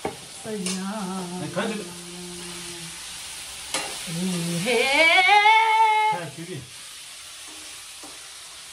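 Food sizzling as it fries in a steel wok, stirred with a metal ladle, with a few light clicks of the ladle. A person's voice hums over it. About halfway through comes one long note that rises then falls, the loudest sound here.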